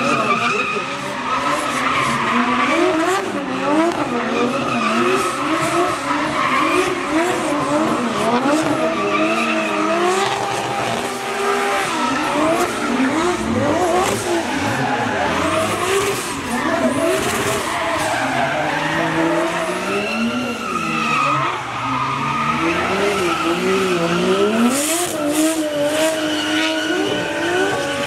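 A drift car's engine revving hard, its pitch rising and falling again and again as the car slides sideways, over the hiss and squeal of spinning, smoking tyres.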